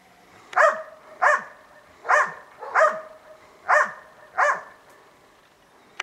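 East Siberian Laika barking six times in three quick pairs, baying at a lynx treed in a snowy spruce.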